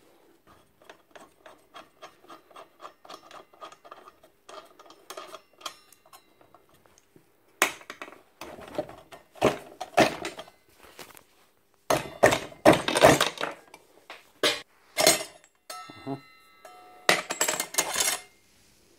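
Metal parts of a small Einhell mitre saw's blade arbor clinking and knocking as the bolt, flange washer and blade are worked off the arbor. Light, quick ticks run through the first six seconds, then louder, sharper clanks follow from about eight seconds in.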